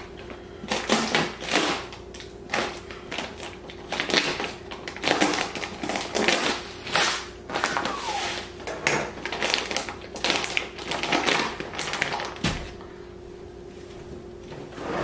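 Plastic bag of Epsom salt crinkling and rustling in irregular crackly bursts as it is handled and cut open with a knife, dying down near the end.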